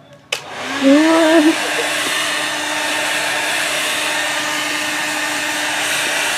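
Handheld hair dryer switched on with a click, then running steadily with a loud blowing hiss and a steady motor hum.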